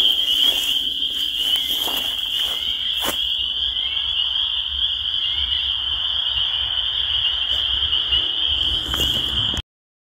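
A chorus of spring peepers: many high-pitched peeps overlapping into one unbroken shrill trill, with a single click about three seconds in. It cuts off suddenly near the end.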